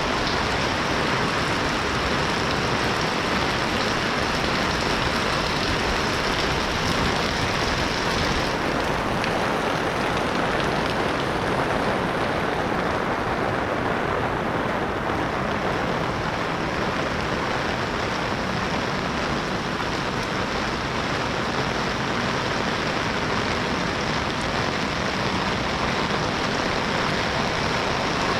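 Steady rain falling, a continuous even hiss that eases slightly in its highest part after about eight seconds.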